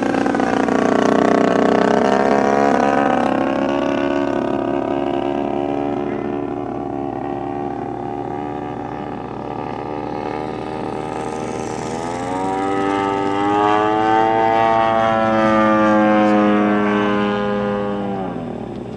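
DLE 55 single-cylinder two-stroke petrol engine and propeller of a large radio-controlled Tiger Moth biplane model in flight. The pitch falls over the first few seconds and holds steady, then climbs sharply about twelve seconds in and stays high before dropping near the end.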